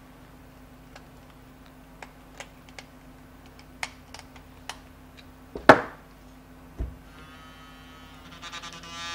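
Small screw being driven into the base of a Lansung SN901 sonic toothbrush with a thin screwdriver, giving light scattered clicks and one sharper click, then the reassembled toothbrush's vibration motor switched on near the end, buzzing steadily and growing louder: the resoldered motor lead is working again.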